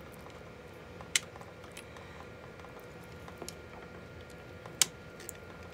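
Fingers picking and peeling packaging tape off the cells of a laptop battery pack: faint crinkling and scratching, with two sharp clicks, one about a second in and one near the end, over a faint steady hum.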